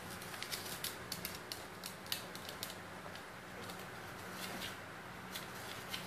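Dry rice grains rustling and clicking against a clear plastic container as a black-capped lory digs and tumbles in it: a quick run of crisp clicks over the first few seconds, then a few more near the end.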